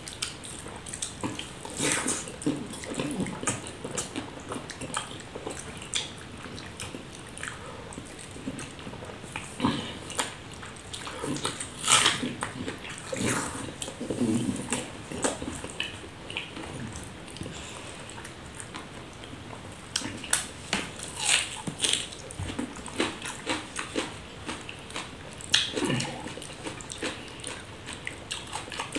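Close-up wet chewing and lip-smacking of a person eating curd rice by hand, mixed with squishing from fingers mashing the soft rice on a banana leaf. The smacks come irregularly, a few louder than the rest.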